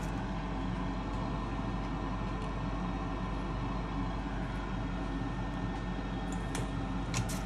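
Steady hum and fan noise from soldering rework equipment (board preheater and hot-air station) running at the bench, with a few light ticks near the end.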